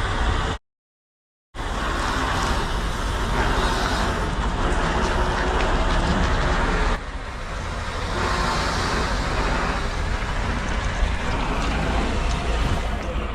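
Diesel engine of a semi-truck running with a steady low rumble as the long trailer is driven in. The sound cuts out completely for about a second near the start.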